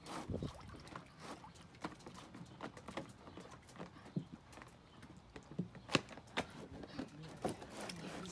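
A dog nosing and snapping at the water in a plastic kiddie pool: a string of short, irregular wet clicks and knocks. The sharpest comes about six seconds in.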